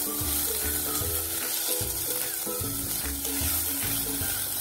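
Chopped onion, ginger and garlic sizzling in hot oil in a pan, stirred with a spatula, over background music.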